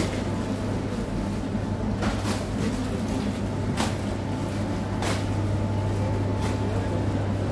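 Wire shopping trolley pushed across a tiled floor: wheels rumbling and the metal basket rattling, with a few sharp clicks, over a steady low hum.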